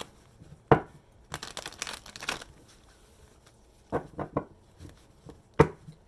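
Tarot deck being shuffled and handled: sharp card snaps under a second in, a rustling shuffle just after, and more snaps near the end.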